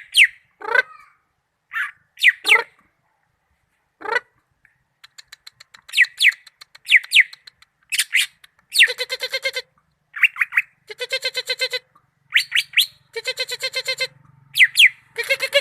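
Cucak ijo (green leafbird) singing a varied song: sharp, quick down-slurred whistles mixed with harsh, rapid chattering trills, in phrases separated by short pauses.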